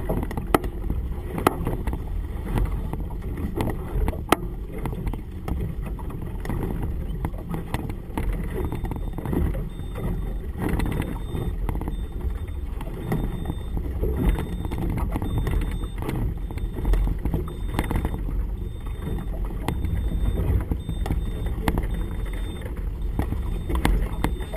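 Gusty wind rumbling on the camera microphone over choppy water slapping against a small boat's hull, with a few sharp knocks in the first seconds.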